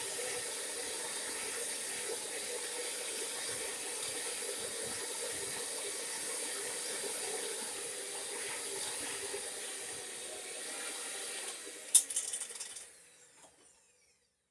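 Electric mixer running steadily, beating egg and vanilla into creamed butter and sugar. It stops near the end with a sharp clack and a brief rattle.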